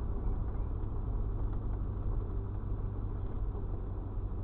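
Steady low rumble of a vehicle's engine and tyres, driving on a gravel road and heard from inside the cab.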